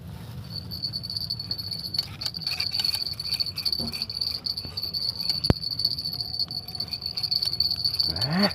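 Steady high-pitched chirring of insects, starting about half a second in. A single sharp click comes around the middle and a short rising call near the end.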